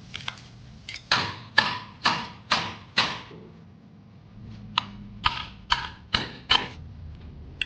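Hammer striking metal with a short ring after each blow: two runs of five even strikes about half a second apart, with a few light taps first, seating a part in a scooter's rear gearbox.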